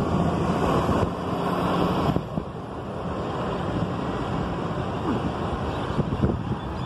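Wind rushing over the microphone, heaviest for about the first two seconds and then steadier.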